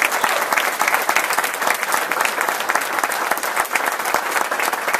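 Audience applauding, many hands clapping at once in a dense, steady spatter of claps.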